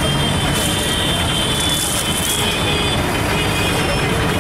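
Steady road traffic noise: the engines of passing vehicles running without a break.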